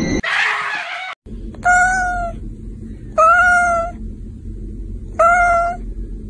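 White long-haired cat meowing three times, each meow short and even in pitch, the three spread over about four seconds.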